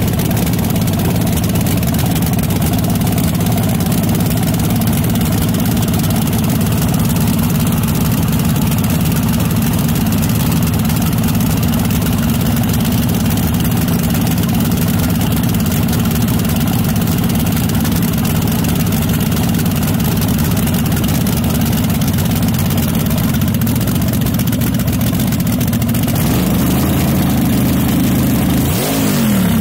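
Supercharged V8 of a vintage front-engine dragster running at a steady idle through its open headers. Near the end the note changes and the engine is blipped, the pitch rising and falling.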